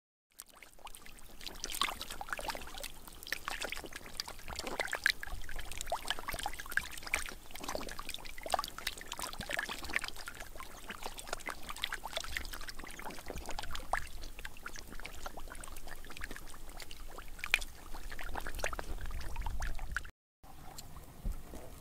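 Many fish thrashing in a shallow muddy pool: a dense, irregular run of wet splashes and slaps that cuts out briefly near the end.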